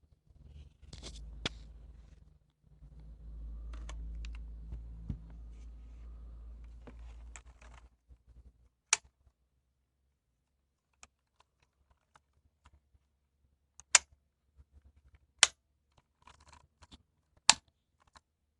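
Z-88 keyboard keys pressed one at a time: scattered clicks, with four loud single strikes in the second half, over a low rumble through the first half.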